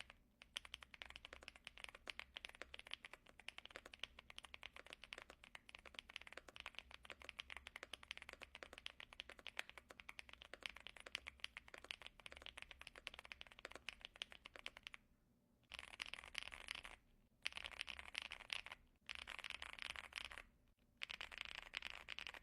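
Fast, continuous typing on a custom mechanical keyboard with Gateron EF Grayish tactile switches and GMK keycaps: dense, rapid keystroke clicks with a soft, creamy sound. Near the end the typing stops and starts in short bursts with brief pauses.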